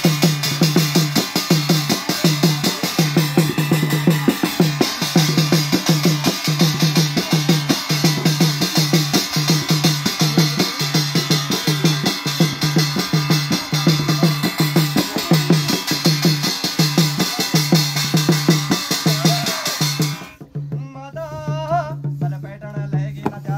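Fast, steady Garhwali jagar drumming on a dhol-damau style drum over a steady low ringing tone. About 20 seconds in the drumming stops and a voice begins singing.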